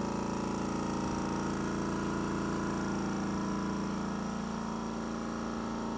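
Stealth 3-gallon, 1 HP oil-free air compressor running steadily, its motor and pump humming as it refills the tank.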